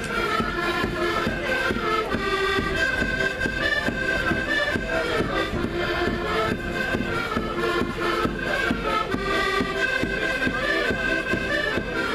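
Live traditional Portuguese folk music from a street band: a reedy melody line over a steady drumbeat.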